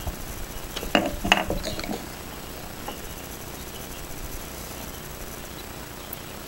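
A few light knocks and clicks about a second in as a plastic shotgun shell hull and a wooden rod are handled and set down beside the metal die of a hand shell-loading press. Then only a faint steady background.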